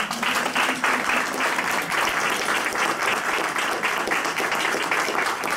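Audience applauding, a dense steady clapping that starts suddenly and eases off after about five and a half seconds.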